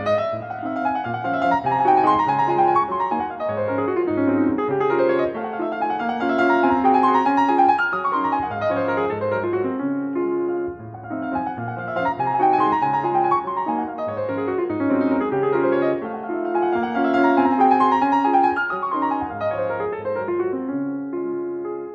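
Background solo piano music: runs of notes sweeping down and back up over a repeating low bass pattern.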